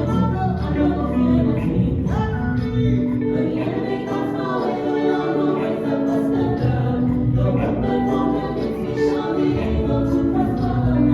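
Gospel music: a choir singing held chords over a band, with the bass dropping away for several seconds in the middle and coming back near the end.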